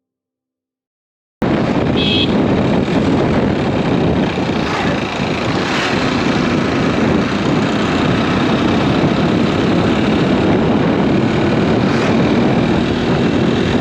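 Steady, loud noise of a moving vehicle, which cuts in suddenly after a second and a half of silence. A brief high tone sounds about two seconds in.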